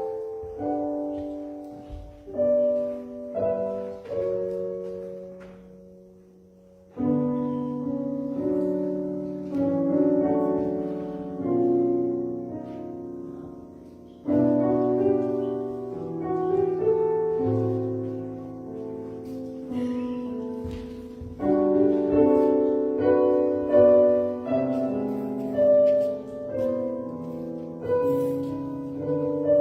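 Slow piano music played in full chords, each struck chord ringing and fading. The playing dies away to a quiet held note about five to seven seconds in, then resumes with a loud chord.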